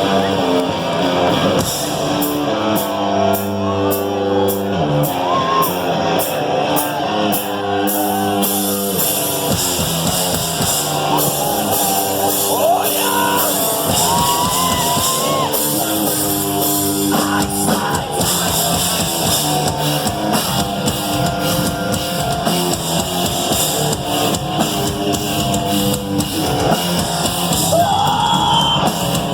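Rock band playing a song live: electric guitars and drum kit, with a singing voice coming in at times.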